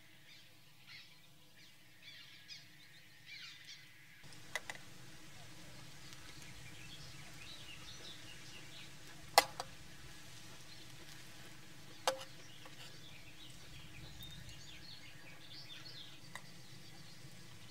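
Birds chirping and singing in the background, with a few sharp metallic clinks of a utensil against camp cookware. The loudest clink comes about halfway through.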